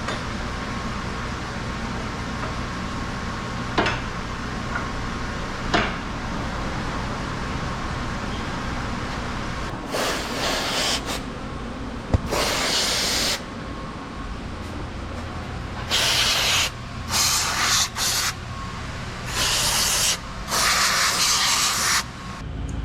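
Aerosol parts cleaner sprayed in a series of short hissing bursts, starting about halfway through, after a stretch of steady low hum broken by a couple of sharp clicks.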